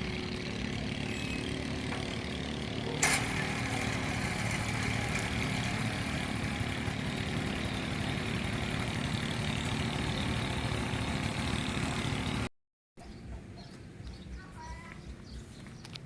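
An engine running steadily with a low rumble, with one sharp click about three seconds in. Near the end the sound cuts to a quieter outdoor background with a few faint chirps.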